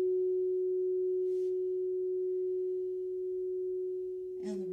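Quartz crystal singing bowl ringing one steady, pure tone that slowly eases in level, left sounding after being played with a mallet.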